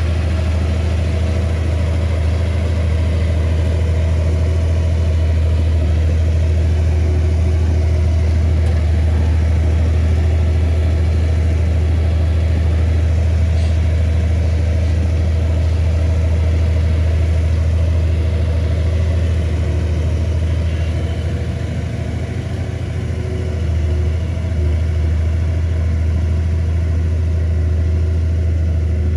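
Komatsu bulldozer's diesel engine running with a steady low drone. It eases off briefly about three-quarters of the way through, then picks up again.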